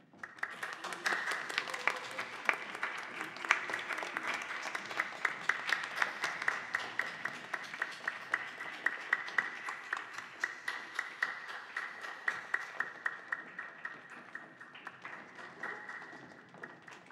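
Audience applause: many hands clapping in a dense patter that swells at once at the start and thins out toward the end, with a few loud individual claps standing out.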